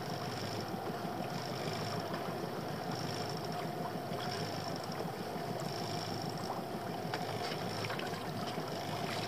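Steady wind and water noise around a small open boat at sea, with a faint steady hum running underneath.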